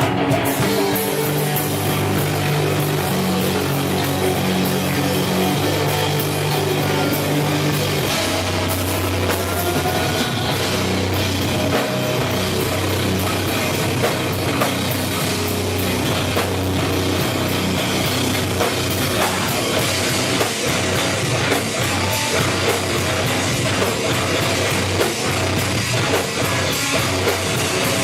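Rock band playing live, with a drum kit and electric guitars driving a loud, dense, steady rock song.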